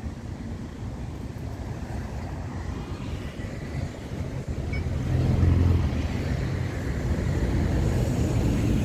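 Low rumble of road traffic. It swells about five seconds in as a vehicle passes, then holds at a steady, louder level.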